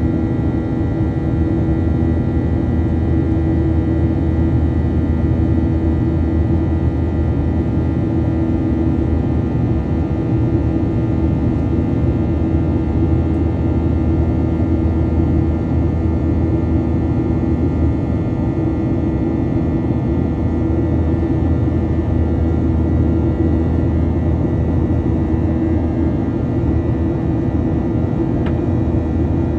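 Airplane engines droning steadily, a constant loud rumble with a layer of steady humming tones that neither rises nor falls.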